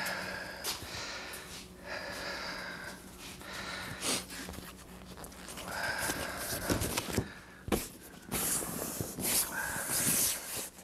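Vinyl seat cover rubbing and squeaking as it is stretched and worked down over a foam seat cushion, in repeated scraping strokes.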